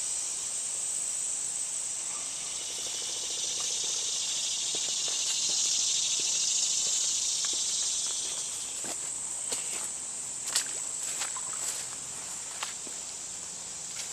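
A steady high-pitched insect chorus, strongest for the first two-thirds, then fading somewhat. From about nine seconds in, footsteps crunch through dense undergrowth with twigs snapping.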